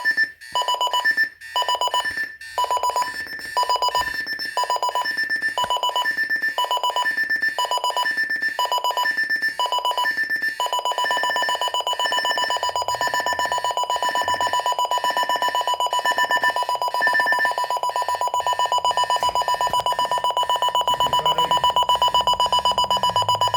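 Electronic alarm clock alarm beeping at a steady high pitch, in evenly spaced pulses a little more than once a second, then changing about ten seconds in to a fast continuous beeping.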